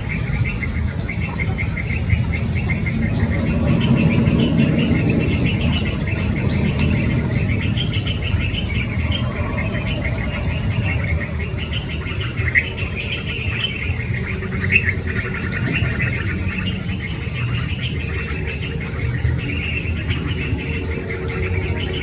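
Birds chirping busily over an insect's steady, evenly pulsed high buzz. Short clusters of two or three high notes come about a third of the way in and again near the end. A low rumble of background noise runs underneath.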